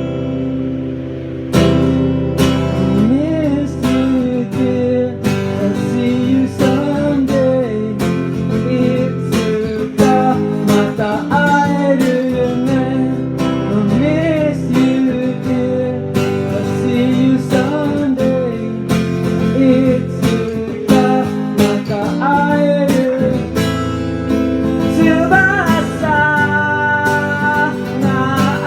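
Acoustic guitar strummed in a steady rhythm, with a melody over it that slides and bends in pitch, played live without words.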